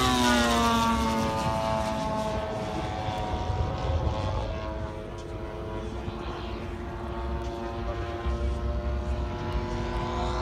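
Engine and propeller of a radio-controlled scale WW2 warbird model droning in flight. The pitch drops in the first second as the plane passes, the sound fades somewhat around the middle, then grows louder again near the end as the plane comes back.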